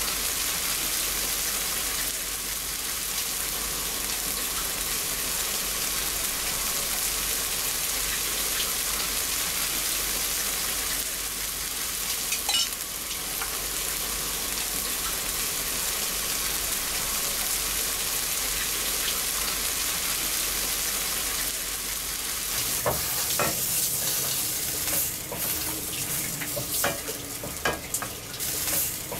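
Egg bhurji masala sizzling steadily in a black iron frying pan while a metal spatula stirs it. In the last several seconds the spatula scrapes and knocks repeatedly as the food is scooped out onto a foil plate.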